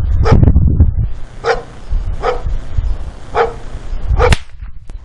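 A dog barking, four short barks about a second apart, the last one loudest and coinciding with a sharp crack.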